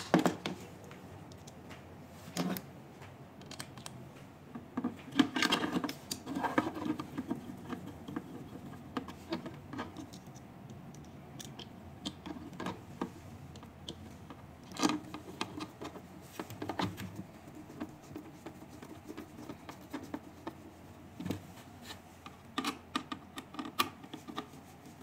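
Screwdriver working screws and a clear plastic holding bracket being fitted against a metal machine casing: scattered clicks, taps and short scrapes at irregular intervals.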